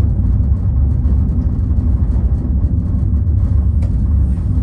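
Steady low rumble of a descending cable car cabin running along its ropes, heard from inside the cabin. A faint click comes near the end.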